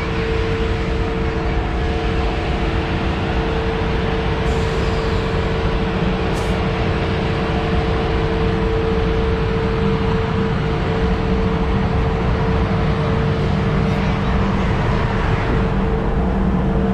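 Diesel engine of an ALCO RS32 locomotive running steadily at idle, a constant loud rumble with a steady hum over it.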